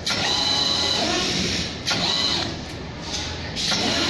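NC servo roll feeder running on test, its servo-driven feed going in repeated runs of one to two seconds with short pauses between, a high steady whine sounding during each run.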